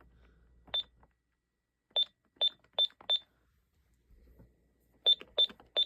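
Ademco LYNX-R alarm keypad giving short, high key-press beeps, each with a small click from the button: one beep, then a quick run of four, then another run of four starting near the end, like four-digit code entries being tried.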